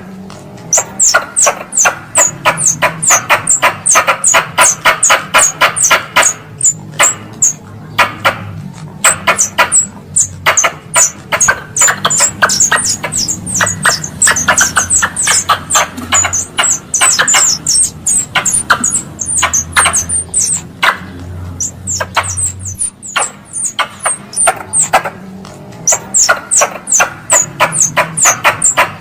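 Wild squirrel (tupai) chattering call, used as a lure sound: rapid strings of sharp, high chirps, several a second, broken by a few brief pauses.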